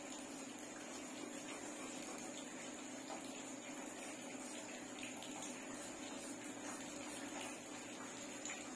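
Pencil drawing on paper: faint, scattered scratches of the graphite strokes over a steady hiss and a faint hum.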